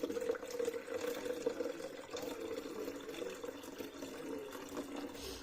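Water pouring steadily into a container, a continuous splashing with a held low note.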